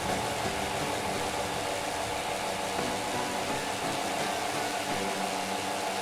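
Homemade air conditioner running: an electric fan blowing air through a refrigerator condenser coil, a steady whirring hiss.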